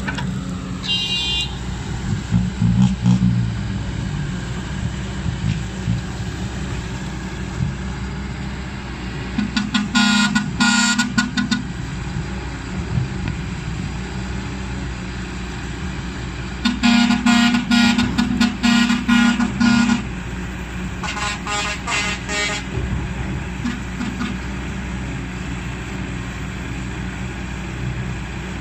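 Kobelco SK200 excavator's diesel engine running steadily, with three spells of a louder, high-pitched pulsing squeal over it, the first about ten seconds in and the last near twenty-two seconds.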